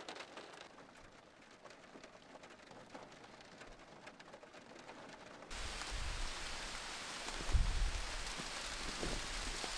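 Steady rain falling on a car roof, heard from inside the car. It is faint for the first half, then becomes suddenly louder and even about halfway in, with a couple of low thumps.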